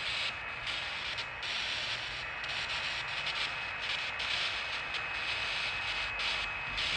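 Ghost-detector app on a smartphone playing a steady radio-static hiss with a faint steady tone in it. The hiss thins out briefly about once a second.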